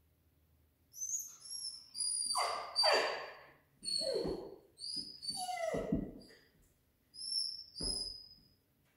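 Dog whining and yelping: a run of high-pitched whines starting about a second in, broken by several cries that slide sharply down in pitch, ending near the close.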